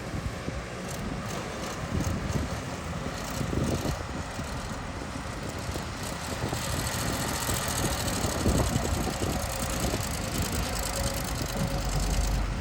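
Excavator's engine running steadily as it digs, with irregular low knocks, growing gradually louder.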